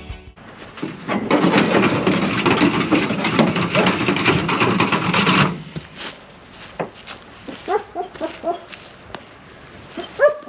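Welded-wire steel cattle panel scraping and rattling as it is dragged out of a pickup truck bed. The noise stops suddenly after about five seconds. Then it is quiet apart from a few short pitched squeaks or calls near the end.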